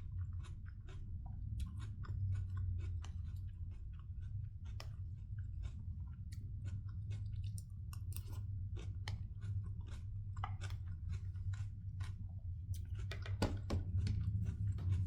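A person chewing crunchy raw salad (apple, pear, capsicum, carrot and cucumber) close to the microphone, with many small, irregular crunches throughout. A steady low hum runs underneath.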